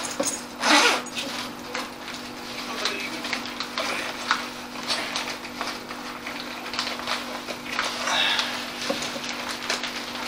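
Rummaging in a bag to get out a REM pod: irregular rustling with small clicks and knocks of handled gear, loudest about a second in, over a steady low hum.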